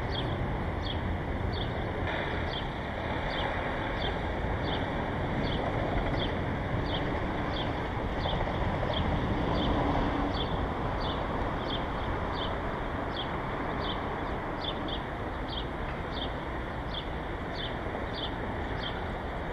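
Steady outdoor background noise, like distant traffic, with a short, high, falling chirp repeating evenly a little under twice a second.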